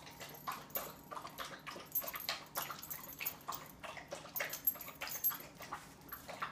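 Dogs working with their mouths: quick, irregular wet clicks and smacks, several a second, from a German Shepherd puppy at a stainless steel bowl and a Labrador mouthing a toy.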